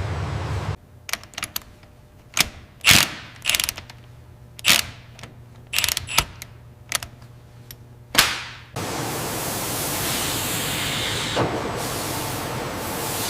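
Factory assembly machinery: about a dozen sharp mechanical clicks and clanks, some with a short hiss, spaced irregularly over about eight seconds. Then a steady whir of machine noise with one thud near the end.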